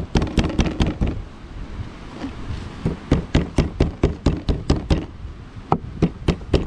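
Kitchen knife chopping quickly on a wooden cutting board: rapid knocks about five a second, in runs with short pauses about a second in and again shortly after five seconds.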